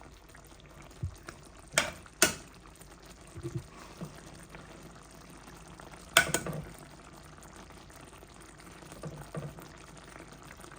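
Stewed chicken thighs being stirred in a pot: a few sharp clinks of a utensil against the pot, loudest about two seconds in and again about six seconds in, over a faint steady simmer.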